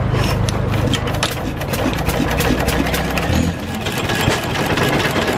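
1923 International Harvester McCormick-Deering Model M 1-1/2 HP throttle-governed stationary gas engine running with a fast, even clatter. A steady low hum underneath stops about two-thirds of the way through.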